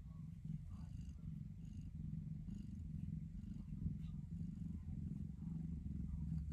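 Mother cat purring in a steady, pulsing low rumble while she nurses her newborn kittens.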